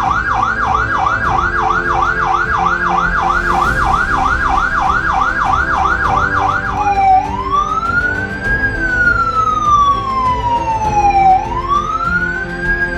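Powercall UDX7 electronic siren sounding its Yelp tone, a fast rising-and-falling sweep about three times a second, then switching about seven seconds in to its Wail, a slow rise and a longer fall taking about four to five seconds a cycle. These are its new Wail and Yelp tones, voiced to sound like a Federal Signal PA300.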